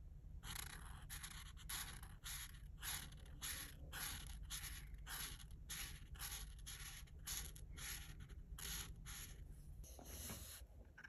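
Art marker tip scratching across paper in quick back-and-forth colouring strokes, about three a second, stopping near the end.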